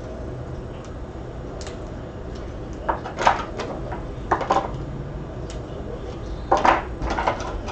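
Handling noise from trading cards and their packaging: three short bursts of rustling and clicking, about three seconds in, past the middle and near the end, over a low steady hum.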